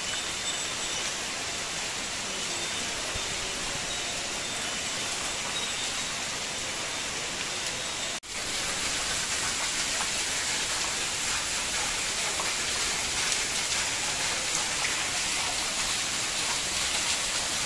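Heavy downpour: a steady hiss of rain falling on pavement and other hard surfaces. It cuts out for a split second about eight seconds in, then carries on a little louder and brighter.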